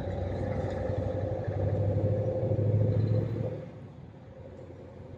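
Scania 770 S's 16-litre V8 diesel pulling under load, heard from inside the cab: a low, steady hum that grows louder, then drops away sharply about three and a half seconds in.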